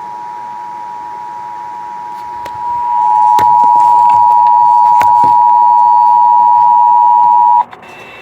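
Emergency Alert System attention signal: the steady two-tone alert (853 and 960 Hz sounded together). It grows much louder about three seconds in and cuts off abruptly near the end. A few clicks fall in the middle, and a short higher beep sounds just after the tone stops.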